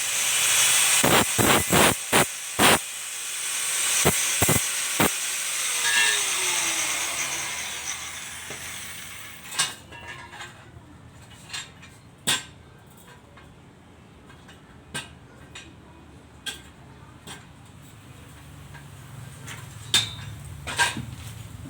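Electric arc welding: a steady hiss with sharp crackles and clicks for about the first nine seconds. After that it is quieter, with scattered sharp clicks and knocks over a low hum.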